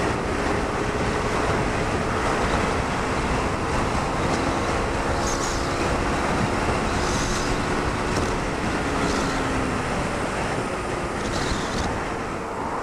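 Honda Varadero 125's small V-twin engine running under way, mixed with a steady rush of wind and road noise. The engine note drifts slightly in pitch, and the overall level eases a little near the end.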